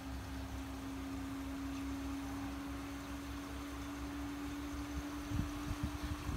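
Covered frying pan of pork steaks cooking with a faint steady hiss, under a steady low hum whose pitch creeps slightly upward. A few low thumps come near the end.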